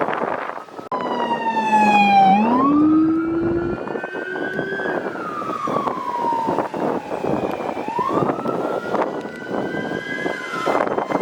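Fire apparatus sirens: a mechanical Q siren winding up in slow rises and coasting back down, twice, with a second siren sweeping steeply downward near the start.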